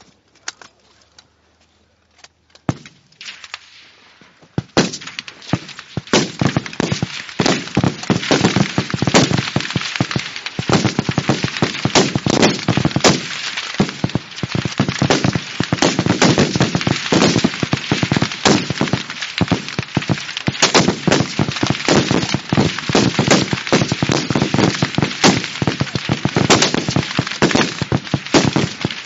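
Many rifles firing at once along a range firing line. A single shot comes about three seconds in, and from about five seconds on the shots come thick and fast and overlap, some closer and louder than others.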